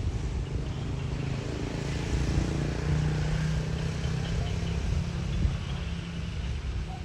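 A motor vehicle's engine running nearby, a low hum that grows to its loudest about three seconds in and then eases off, like a vehicle passing by.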